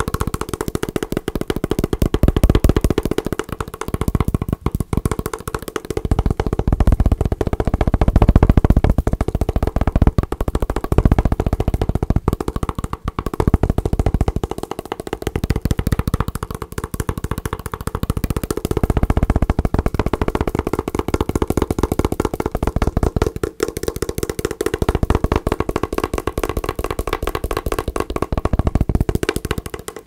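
Fingertips tapping fast on a hard glasses case held close to the microphone: a dense, continuous patter of knocks.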